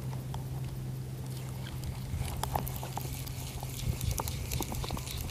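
Spinning fishing reel being cranked to wind in line that a grouper has just broken off. There is a steady low hum under scattered light clicks.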